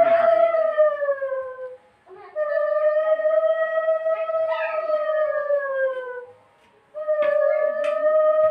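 Conch shell (shankha) blown in long, steady blasts during puja. One blast ends about two seconds in, a second lasts about four seconds, and a third starts near the end; each sags in pitch as it dies away.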